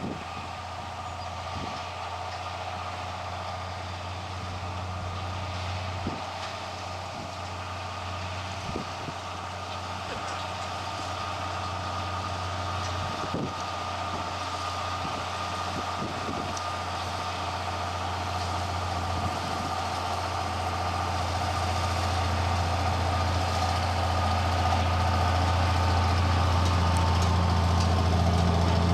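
Tractor engine running steadily, a low drone that grows gradually louder, with a few scattered clicks and knocks.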